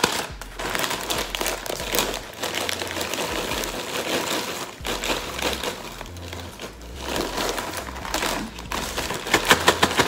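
Plastic bags crinkling as hot Cheetos are poured from their snack bag into a zip-top plastic bag, with a quick run of sharper crinkles near the end.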